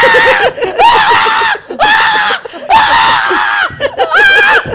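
A man screaming in a string of long, held shrieks, about five in a row, the last one pitched higher. He is acting out the screams of a night terror.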